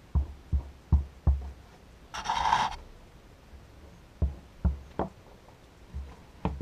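Small wooden blocks knocked and set down on a wooden workbench: two runs of dull taps with a pause between, and a short hiss a little after two seconds in.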